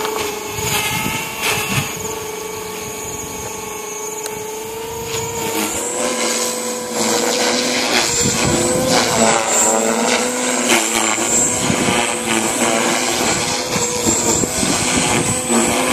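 JR Forza 450 radio-controlled helicopter in flight: a steady high whine from its electric motor and spinning rotors. It grows louder and more wavering about six seconds in as the model manoeuvres.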